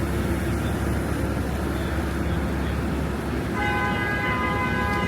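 Steady city traffic rumble on a street. A car horn sounds one held blast for about two seconds near the end.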